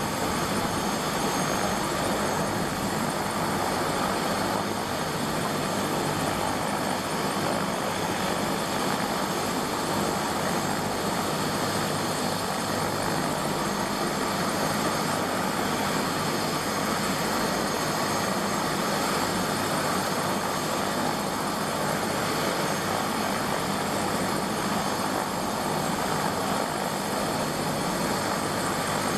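Helicopter engine and rotor running steadily: an even rush of noise with thin steady high whines over it, holding the same pitch and level throughout.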